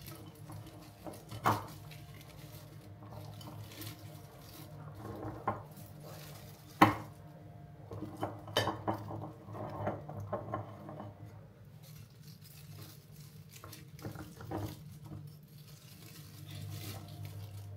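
Artificial berry and pine stems rustling and clinking against a clear glass vase as they are pushed in and rearranged: scattered sharp clinks, the loudest about seven seconds in and a quick cluster a little after. A low steady hum sits underneath.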